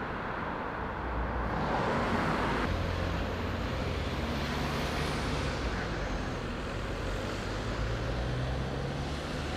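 Road traffic noise on a dual carriageway: a vehicle swells past about two seconds in, then a steady low engine drone goes on.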